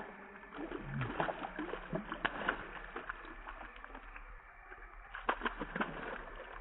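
A small hooked fish splashing and thrashing at the surface of a pond as it is pulled in on a fishing line, in irregular bursts of splashes, busiest about a second in and again near the end.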